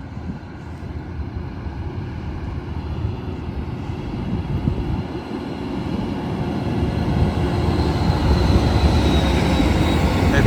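Amtrak Siemens ALC-42 Charger diesel-electric locomotive approaching with its passenger train. The rumble of engine and wheels grows steadily louder.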